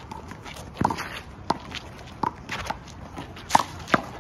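Handball rally: a string of sharp smacks, each with a brief ring, as a rubber handball is slapped by hand and strikes the concrete wall and floor, with players' shoes scuffing on the court.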